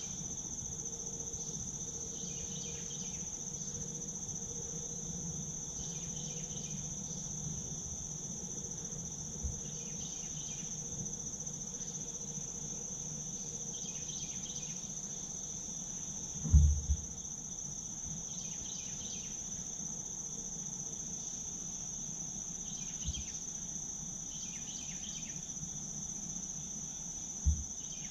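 Steady high-pitched drone of insects, with fainter chirps repeating every couple of seconds. A few short low thumps break through, the loudest about halfway through.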